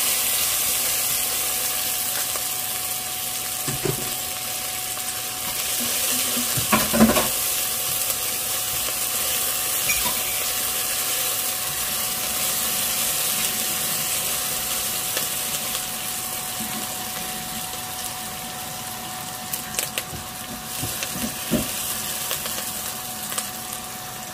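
Onions and garlic sizzling in hot oil in an enameled cast-iron Dutch oven: a steady frying hiss that fades slowly. A silicone spatula stirs them, with a few knocks and scrapes against the pot, a cluster about seven seconds in.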